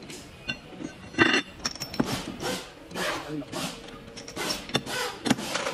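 Steel parts of a cycloid reducer clinking and scraping as a cycloidal disc is worked down onto the shaft inside the ring of needle pins, with several sharp metallic knocks that ring briefly.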